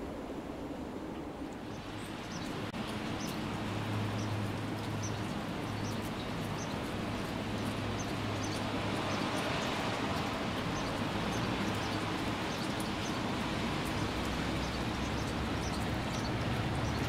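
Diesel locomotive approaching from a distance, its engine a steady low hum that comes in about two seconds in, over a constant hiss of damp outdoor ambience with faint bird chirps.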